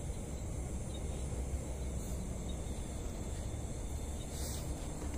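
Field insects trilling in steady, high, continuous tones over a constant low rumble, with a brief rush of noise about four seconds in.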